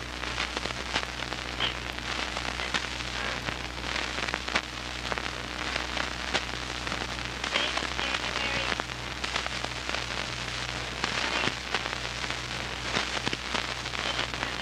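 Dense crackling and hiss over a steady low electrical hum, the surface noise of an old recording.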